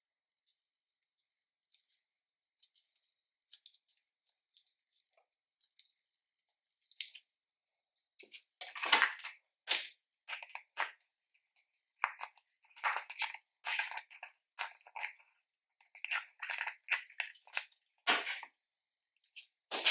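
Slime being worked by hand: faint scattered sticky clicks at first, then from about halfway through repeated louder squelching and crackling as the slime is squeezed and mixed.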